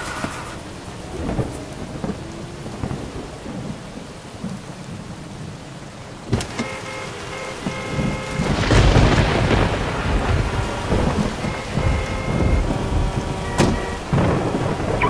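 Heavy rain falling, with thunder: a sharp crack about six seconds in, then a loud rolling rumble a couple of seconds later.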